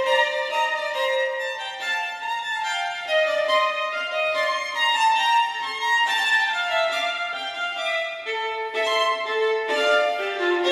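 Background music: a violin melody, one note after another, with no bass underneath.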